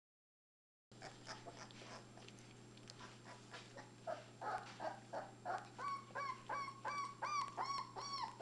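Three-week-old Labrador puppies squeaking and whining in a quick series of short, high, arching calls after a second of silence and some faint rustling. The calls come louder and closer together over the last few seconds.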